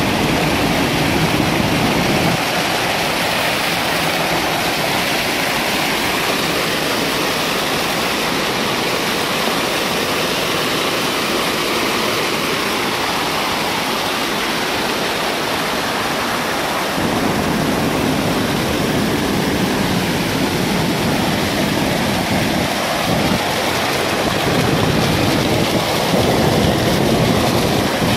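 Floodwater pouring over a low dam weir and splashing into foam below: a steady, loud rushing. A deeper rumble under it drops away about two seconds in and comes back after about fifteen seconds.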